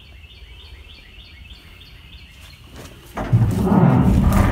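A bird chirping faintly and repeatedly, about three short chirps a second. About three seconds in, loud rumbling, rubbing handling noise as the camera brushes against a cloth van seat.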